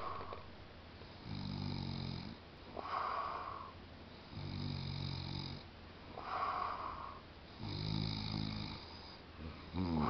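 A person snoring in deep sleep: a low, rattling snore followed by a breathy hiss, repeating about every three seconds, three times over.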